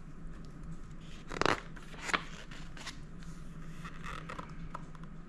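Paper rustling from a picture book being handled and its page turned: one brief rustle about a second and a half in, then a couple of smaller ticks, over a faint steady hum.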